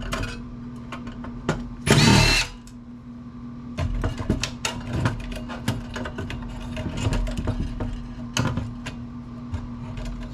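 A power drill-driver whirs briefly about two seconds in while the amplifier is being taken apart, followed by a run of light clicks and knocks from the parts being handled. A steady low hum lies underneath.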